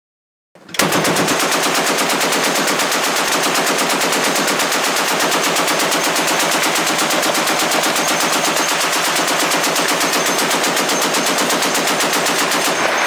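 M2 Browning .50-calibre heavy machine gun firing one long, continuous burst of rapid automatic fire at a steady rate, starting about half a second in.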